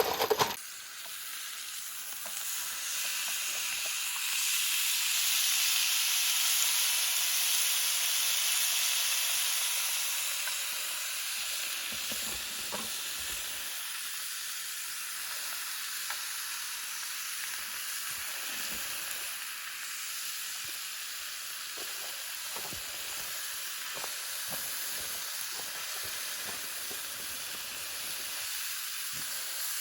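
A steady sizzling hiss that swells louder a few seconds in, then eases to a steady level, with a few faint knocks.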